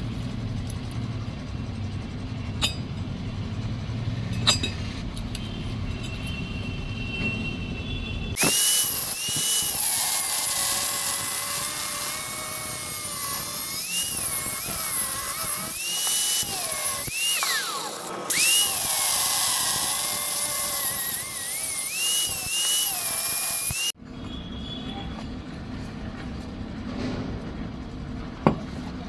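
An electric power tool working metal runs for about fifteen seconds with a loud, bright whine whose pitch dips and recovers again and again as it loads up. It stops suddenly, and a low steady hum is heard before and after.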